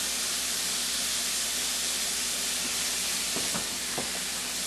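Chopped onion and garlic sizzling steadily in olive oil in a cast iron skillet, with a few faint ticks near the end.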